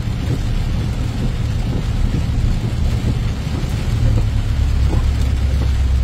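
Steady rumbling noise from inside a vehicle driving along a hail-covered road in a storm, with scattered light ticks against the windshield. The low rumble grows heavier about four and a half seconds in.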